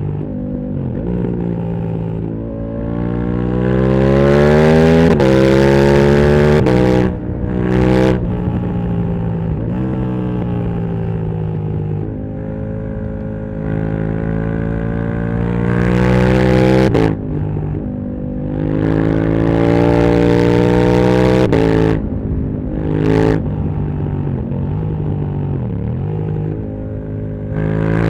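KTM 1290 Super Duke R's V-twin engine through a full titanium Akrapovic exhaust, accelerating hard in several pulls with the pitch rising, each cut briefly by quickshifted upshifts, and settling into steadier running between pulls.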